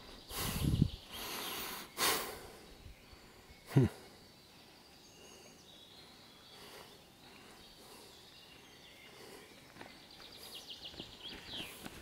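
A few loud breathy puffs close to the microphone in the first four seconds, the last one short and sharp, then faint open-air forest ambience with a quick high ticking trill near the end.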